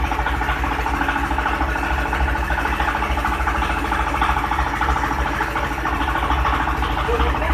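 Stainless-steel hammer mill running steadily, its motor humming as it grinds lumps of brown sugar fed into the hopper into powder. A fast, even rattle from the grinding runs over the hum.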